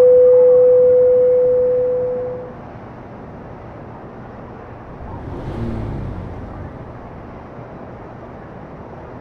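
A single clear, loud ringing tone held at one pitch, fading away about two and a half seconds in. About five seconds in comes a short, lower sound that slides down in pitch.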